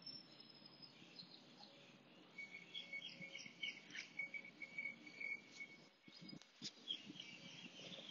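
Near silence with faint birds chirping and insects calling, including a thin, steady high trill in the middle stretch.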